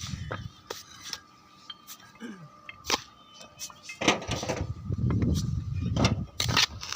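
Sharp clinks and knocks of roof tiles being handled and set, with rougher scraping and shuffling from about four seconds in.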